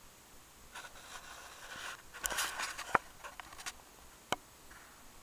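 Handling noise around steel ammunition boxes: a soft rustle, then about five light clicks and knocks, the sharpest about three seconds in.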